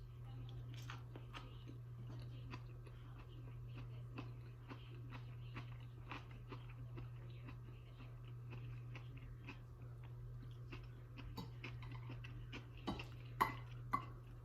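A person chewing a mouthful of food, with many small soft mouth clicks, and a couple of louder clicks near the end. A steady low electrical hum runs underneath.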